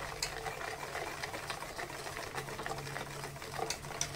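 Wire whisk beating flour into cake batter by hand in a stainless steel bowl: a quick, even rattle of the wires clicking against the metal.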